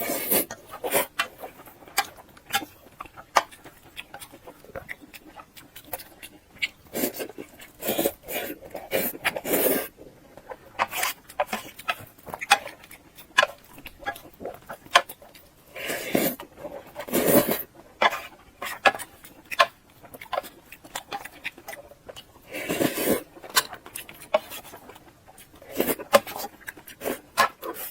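Close-miked eating mouth sounds: irregular chewing and lip-smacking clicks, with a few longer wet bursts of chewing or slurping.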